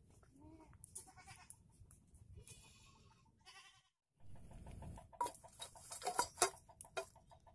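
A wavering animal call sounds a few times in the first half. After a short break, a wood fire crackles with sharp pops, along with a fast, evenly repeating chirp.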